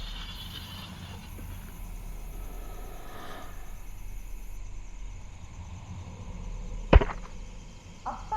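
Low steady ambient rumble, broken about seven seconds in by a single sharp, loud thwack-like impact with a brief ringing tail, followed by a faint click near the end.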